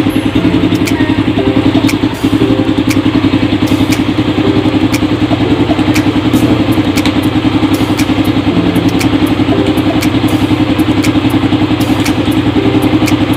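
Suzuki Raider R150's single-cylinder two-stroke engine idling steadily, heard close up with a fast, even pulse.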